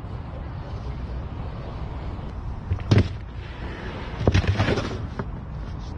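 Giant pumpkins cracking and splitting under an elephant's foot: one sharp crack about three seconds in, then a quick cluster of cracks and splits a second later.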